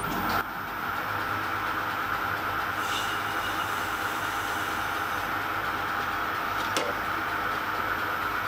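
Small metal lathe running steadily, its chuck spinning, with one sharp click about seven seconds in.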